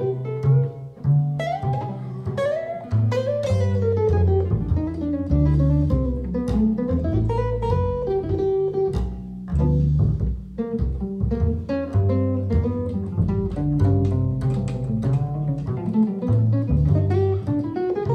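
Jazz guitar and double bass duo: a hollow-body archtop guitar plays melodic lines over a plucked double bass line.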